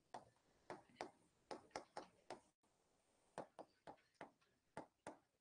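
Faint, irregular clicks of a pen tip tapping the writing board while a short formula is written, about a dozen taps with a brief pause about halfway through.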